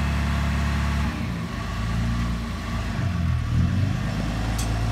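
Tow truck engine running steadily. About a second in its note breaks up and wavers, then steadies again near the end.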